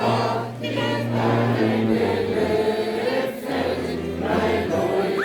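A group of people singing together, with held low bass notes underneath that change every second or two.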